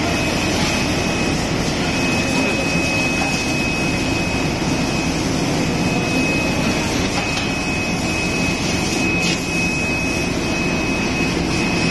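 GKS-14 bag heat-sealing machine running: a steady mechanical whir from its conveyor and sealing head, with a thin high-pitched whine that drops out briefly just after the start.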